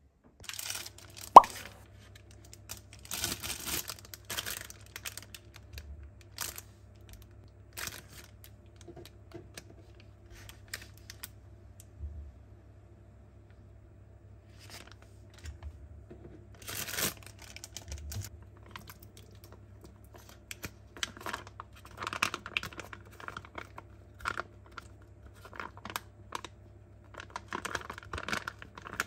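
Small handling noises: scattered rustles and clicks, with one sharp knock a little over a second in and busier rustling near the end, over a faint steady low hum.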